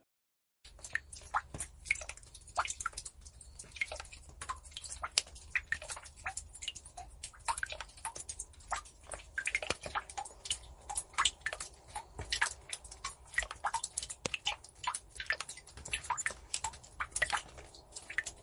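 Water dripping: a dense, irregular patter of many small drops of varying pitch over a low steady hum, starting about half a second in.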